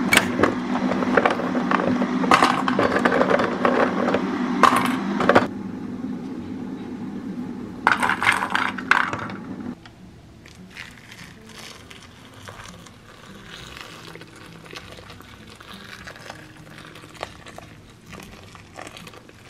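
Dried shiitake mushrooms being handled out of a plastic canister into a stainless steel bowl, rattling and clicking against the metal, over a steady low hum that stops about halfway. The second half is much quieter, with faint scattered ticks as the mushrooms are set to soak.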